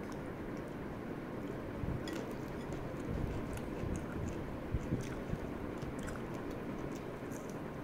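Raw long beans being chewed, with short crisp crunches scattered through, over a steady low background noise.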